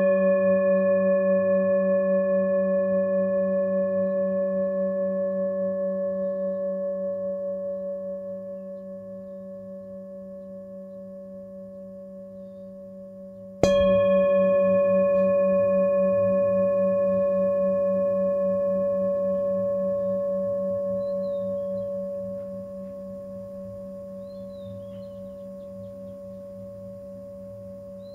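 A singing bowl rings on, fading slowly with a wavering low hum. About halfway through it is struck again and rings out, slowly dying away.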